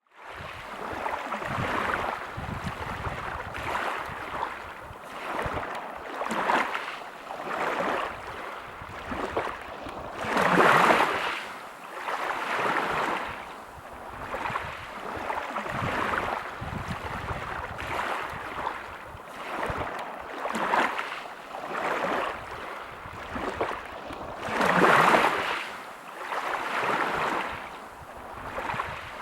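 Sea waves breaking and washing over a pebble beach in repeated swells a few seconds apart, with two larger waves breaking louder along the way.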